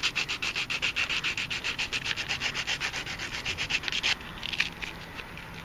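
Folded fine-grit sandpaper rubbed quickly back and forth through a notch in a PVC bow tip, about nine even strokes a second, rounding the notch's edges so the bowstring won't fray. The sanding stops about four seconds in, leaving a few light handling sounds.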